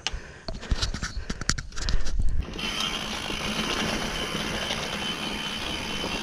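Mountain bike on a dirt singletrack: sharp clicks and knocks of the bike over rough ground for the first two and a half seconds, then the rear freehub ratcheting in a steady buzz as the bike coasts.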